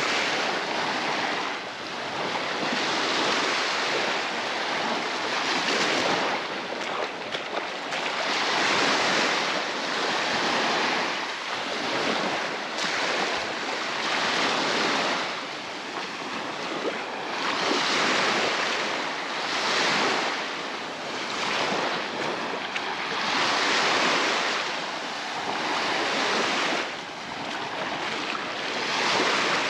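Baltic Sea waves breaking and washing in on the shore, the surf swelling and fading every few seconds, with some wind.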